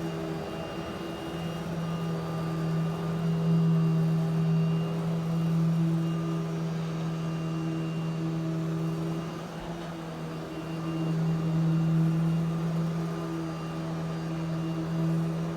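Eureka Smart Vac vacuum cleaner running, a steady motor hum whose loudness swells and eases.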